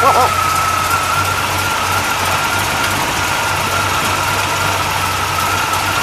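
Chevrolet 327 small-block V8 idling steadily, with a steady high whine over the engine note. The rattle around the fan is traced by the men to a wobbling harmonic balancer.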